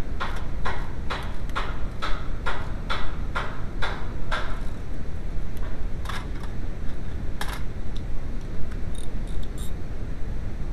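Ratchet wrench on a long socket extension, worked in about ten even strokes at roughly two a second, then stopping. A couple of separate clanks and a few light metal clinks of tools being handled follow, over a steady low rumble.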